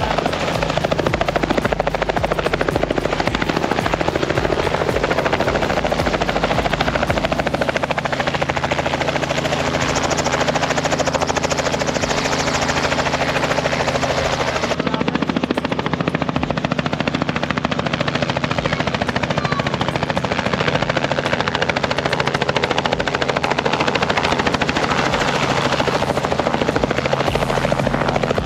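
Light two-bladed helicopter running on the glacier landing area, a loud steady engine and rotor sound; its note changes about halfway through.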